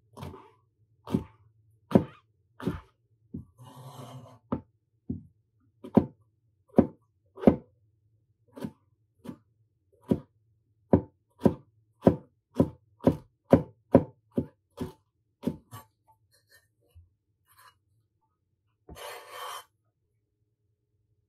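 Chef's knife chopping on a plastic cutting board: a run of sharp chops, irregular at first, then about two a second, stopping about three-quarters of the way through. A brief rasping noise near the end.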